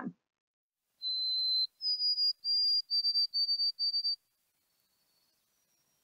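Recorded song of a white-throated sparrow: about a second in, one clear held whistle, then a slightly higher whistled note, then a run of short repeated whistles at about the same pitch, ending after about three seconds.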